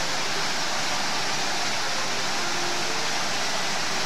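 Large fountain's water jets and tiered cascades rushing and splashing: a steady, even hiss of falling water.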